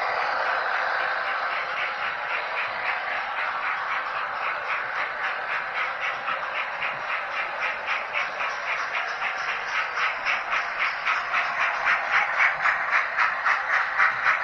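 Model railway trains running on the layout: a steady whirr of wheels on track with an even clicking over the rail joints, about three a second. The clicking grows louder toward the end as a long goods train of wagons, hauled by a steam locomotive, passes on the nearest track.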